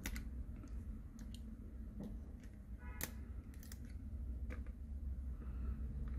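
Small sharp clicks and taps, about five in all, from tweezers and flex-cable connectors being worked inside an opened Samsung Galaxy A20e, over a low steady room rumble.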